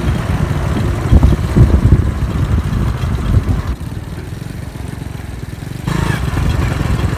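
Motorcycle being ridden along a road: its engine running under a heavy, uneven rumble of wind on the microphone. The noise eases for about two seconds in the middle, then rises again.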